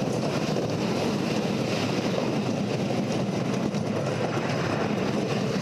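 Wooden roller coaster's Timberliner train running along the track, a steady rumbling clatter.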